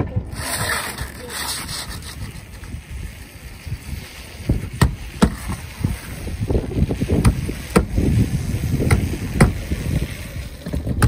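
Roofing hammer hand-nailing asphalt shingles: a run of sharp, separate strikes on nails, about one to two a second, starting about four and a half seconds in. A brief hiss comes near the start.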